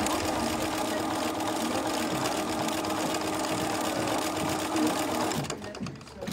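Bernina B 335 sewing machine running steadily, stitching fabric, then stopping about five seconds in.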